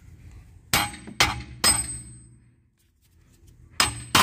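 Hammer blows on a steel rear wheel bearing/hub assembly to knock it off the knuckle: three ringing metal clangs about half a second apart, a pause, then two more near the end.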